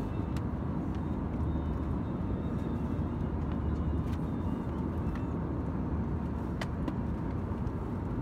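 Steady in-flight cabin noise of an Airbus A320-214 with CFM56 engines: an even low roar of engines and airflow, with a few faint clicks from handling in the seat.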